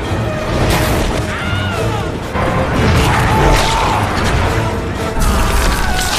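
Action-film storm soundtrack: a dense roar of tornado wind and flying debris with booming crashes and impacts, under a music score.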